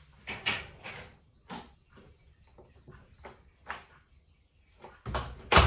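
A few light knocks and rustles, then a door shut with a loud thump near the end.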